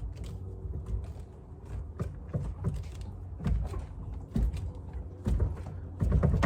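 Steering wheel of a Daihatsu Midget II being rocked and yanked by hand off its steering column, with no puller: a run of clicks and knocks and several heavier thumps. A steady low hum runs underneath.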